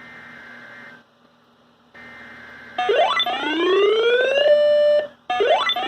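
Electronic alert alarm going off for an incoming second tornado warning. Its tone rises in pitch for about a second and a half, holds, and cuts off, then starts rising again near the end. Radio hiss comes before it, broken by about a second of silence.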